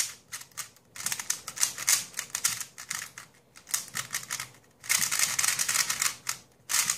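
MoYu 3x3 speed cube, silicone-lubricated, being turned fast by hand: quick runs of plastic clicking as the layers turn and snap into place. There are two long flurries of turns, about a second in and again around five seconds in, with single clicks between.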